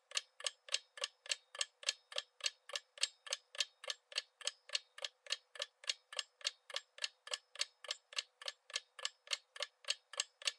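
Clock-ticking countdown-timer sound effect, even sharp ticks at about four a second, marking the time left to answer.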